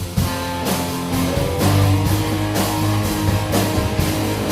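Live rock band playing the instrumental opening of a song: guitar over a steady drum beat, with no singing yet.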